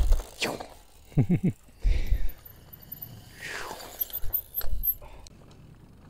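A few short shouts and calls from people, one a quick cluster of calls about a second in and one a falling call a little past the middle, with low rumbling bursts and a few knocks between them.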